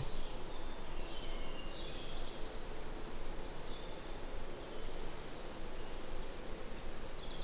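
Woodland ambience: small birds calling with short chirps at intervals, mostly in the first half, over a steady low background rumble. A sharp click right at the start.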